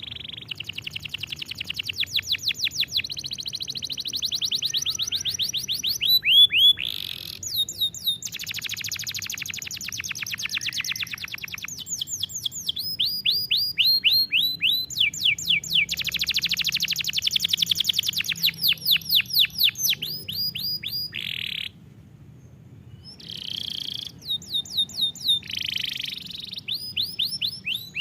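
Domestic canary singing a long song of fast trills and repeated quick sweeping notes, phrase after phrase, with a brief pause about three-quarters of the way through.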